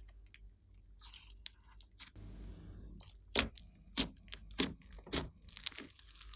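Glossy slime being kneaded and pressed by hand, crackling with small clicks. In the second half come four loud sharp pops, evenly spaced about half a second apart.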